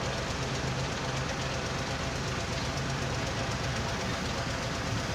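Heavy diesel machinery at a stone-and-sand screening operation, an excavator and a screening machine, running steadily with a constant low hum.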